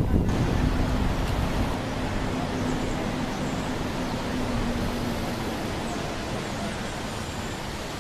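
Steady outdoor city noise: the hiss of distant road traffic, with a faint low hum that fades out in the second half.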